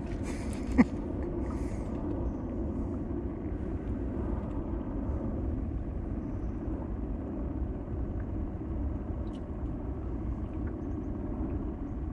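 A steady low rumble on the water, with a sharp click about a second in and a brief hiss near the start.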